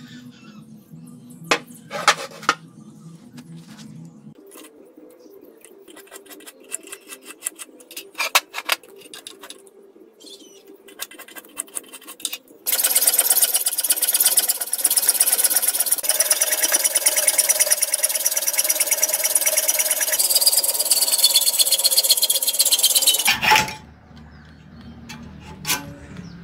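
Background music with a few sharp metal clanks as steel plates are handled, then about ten seconds of loud, harsh, crackling power-tool work on a thick steel plate that stops abruptly.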